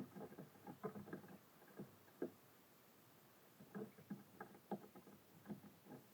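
Birds tapping and pecking on a wooden bird feeder: irregular light knocks in small clusters, with a sharper knock at the start.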